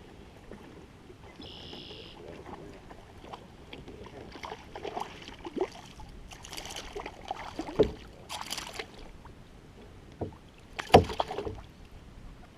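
Scattered knocks, clicks and thumps on a Jackson Cruise FD fishing kayak as gear is handled aboard, with the two loudest thumps about eight and eleven seconds in.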